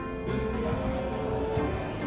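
Background music: a melody of held notes over a steady bass line.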